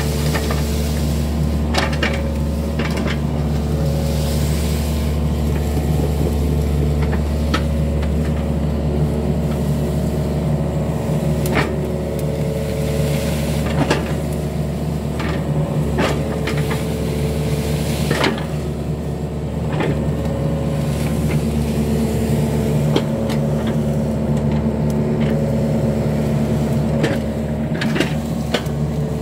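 Yanmar mini excavator's diesel engine running steadily under load, with irregular sharp knocks and clanks from the arm and bucket as it digs and clears brush.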